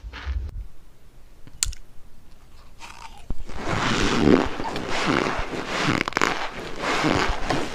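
Close-up crunching and chewing of compressed cornstarch blocks. It is quiet at first, with one sharp click, then turns into loud, steady chewing crunches from about three seconds in.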